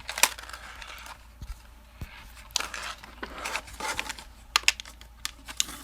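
Small plastic remote parts and their packaging being handled: scattered light clicks and taps with some rustling.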